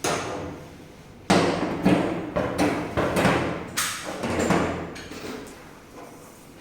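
A series of knocks and thuds, about half a dozen sudden hits that each ring out briefly in a large room, coming thick and fast over the first four and a half seconds and then dying away.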